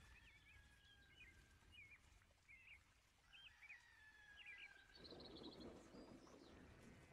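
Near silence, with faint bird chirps in the background. From about five seconds in there is a faint rasping as a knife saws through a crusty sesame-topped bread round.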